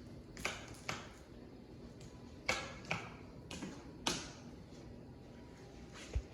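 A run of short, sharp clicks and taps, about six in four seconds, with quiet between them.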